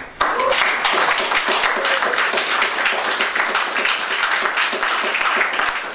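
Audience applauding: many hands clapping in a dense patter that starts suddenly and dies away near the end.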